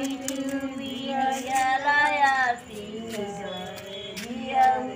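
Women's voices singing, drawing out long held notes that bend up and down, with the loudest line in the first half.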